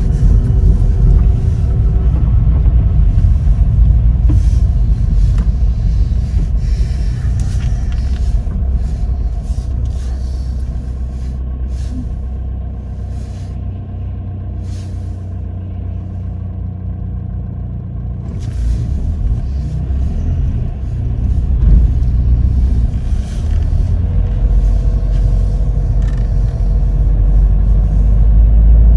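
Car driving on a wet road, heard from inside the cabin: a steady low engine and road rumble, with repeated hissing surges from the tyres on wet tarmac and standing water. It goes quieter for a while in the middle, then builds again.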